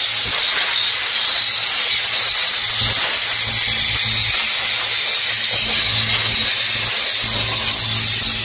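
Compressed air hissing steadily from a handheld air blow gun fed by an air compressor, blowing dust out.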